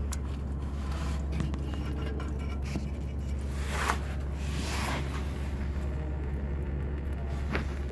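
A few brief scraping, handling sounds, about four, five and seven and a half seconds in, over a steady low hum.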